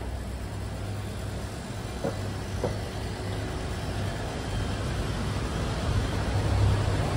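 City street traffic noise: a steady low rumble of vehicles that grows louder toward the end.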